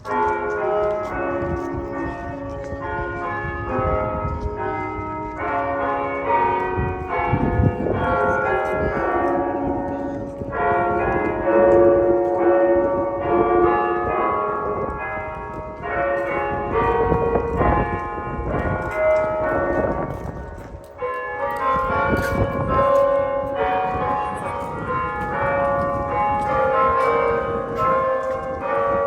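Church tower bells of Mission San José ringing together, many bells struck again and again so their tones overlap and keep sounding. The ringing starts suddenly and eases off briefly about two-thirds of the way through before going on.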